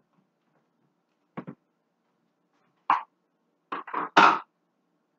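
A few short knocks and clatters of kitchen utensils and dishes being handled on the counter: a quick pair, a single one a second and a half later, then a louder cluster of three near the end.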